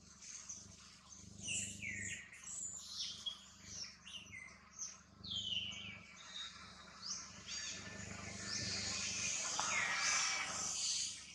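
A run of short, high-pitched chirping calls, many falling in pitch, then a longer, harsher squeal over the last few seconds.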